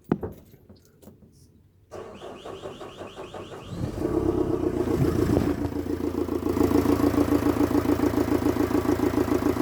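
Freshly rebuilt Vauxhall Vivaro van engine cranked on the starter motor for about two seconds, catching about four seconds in and settling into a steady, evenly pulsing idle.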